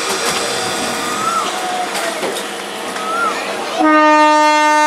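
Electric multiple unit local train running past with a steady rumble and rattle, then its horn starts near the end, one loud steady note.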